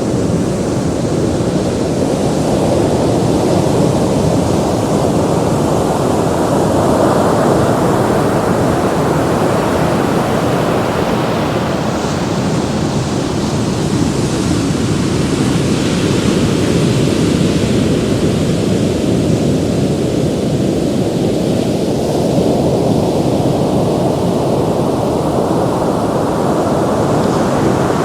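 Ocean surf: a continuous rush of waves breaking and washing ashore, swelling and easing slowly over many seconds.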